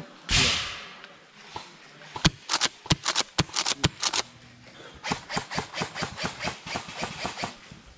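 Airsoft gunfire: a string of sharp cracks, irregular at first, then a fast steady run of about six shots a second through the last three seconds. A short rush of noise comes about half a second in.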